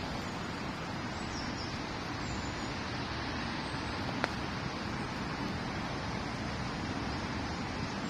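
Steady outdoor background noise, with a few faint high chirps and one sharp click about four seconds in.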